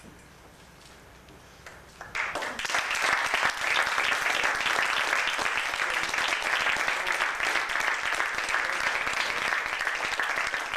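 Audience applauding, breaking out suddenly about two seconds in and continuing steadily.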